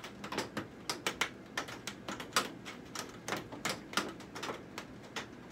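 Rain drops popping on a greenhouse roof: irregular sharp taps, several a second.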